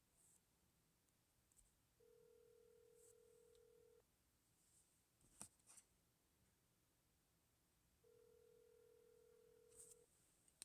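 Faint telephone ringing tone: two long steady beeps of about two seconds each, about four seconds apart, with a sharp faint click between them.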